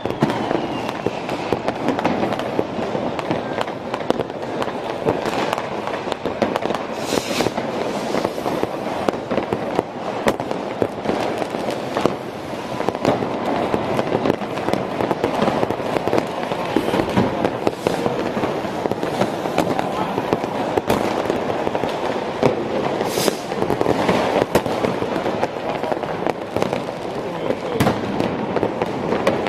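Continuous barrage of New Year's Eve fireworks and firecrackers going off all around: dense, unbroken crackling and banging, with a couple of louder, sharper bursts about seven seconds in and again near the end.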